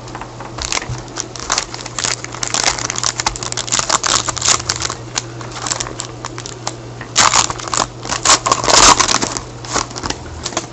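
Hockey card pack wrapper crinkling and tearing as it is opened by hand, a dense run of crackles that is loudest about seven to nine seconds in.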